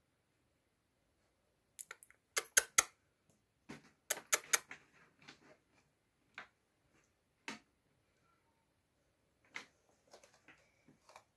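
Irregular sharp clicks and taps: a quick cluster of about four near two seconds in, another near four seconds, then scattered single clicks.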